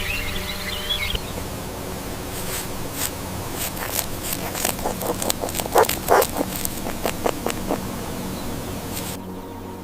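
A series of short, sharp animal calls, the loudest a little past the middle, over a steady low background.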